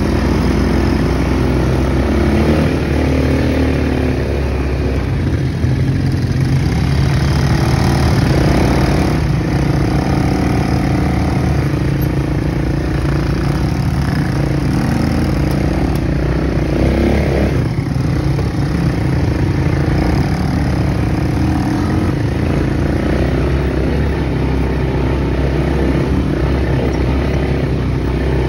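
Quad bike (ATV) engines running steadily at low trail speed, their pitch shifting a little with the throttle.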